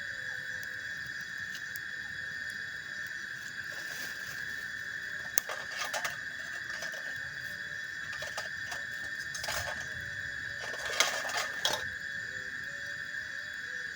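A steady, high-pitched insect drone, with a few scattered knocks and rattles from handling things; the loudest cluster of knocks comes near the end.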